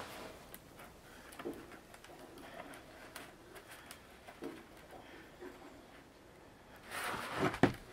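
Woven bamboo winnowing basket (ajiro-mi) flexing under hand pressure: faint creaks and small ticks of the bamboo strips as its sides are pressed and bent into shape. A louder rustling scrape comes near the end as the basket is shifted.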